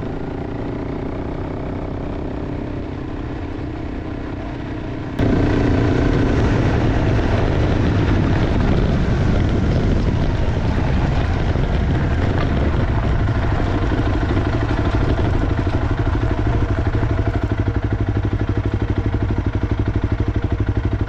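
Honda CRF300 Rally's single-cylinder engine running through its aftermarket Moto X exhaust, steady. It becomes abruptly louder about five seconds in.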